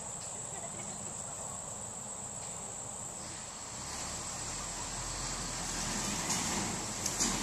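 Steady high-pitched insect chorus droning in a summer field. A broader noise with a low rumble gradually builds through the second half.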